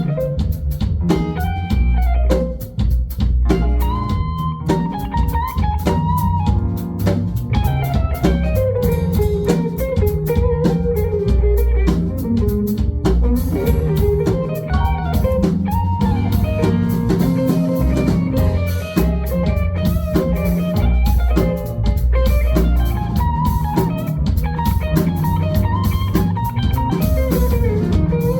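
Live funk band instrumental: a guitar plays a winding melodic lead over a steady drum kit groove.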